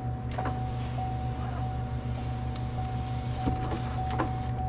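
A steady low mechanical hum with a thin steady whine above it, and a few faint light clicks.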